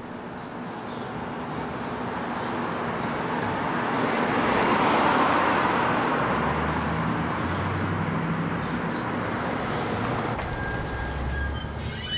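Street traffic: a car passing close by, its tyre and engine noise swelling and then fading, with a low rumble behind. Near the end comes a brief high ringing as a glass shop door opens.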